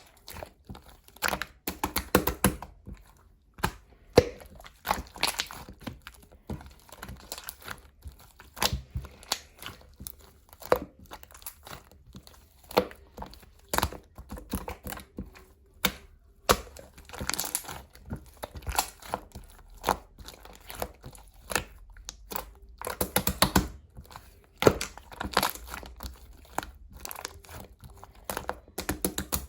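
Slime being squished, stretched and poked by hand: irregular crackling, popping and sticky clicks, coming in uneven clusters.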